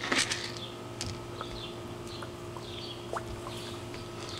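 Backyard pond ambience: a brief splashing rush right at the start as fish take floating food at the surface, then small birds chirping faintly now and then over a steady low hum.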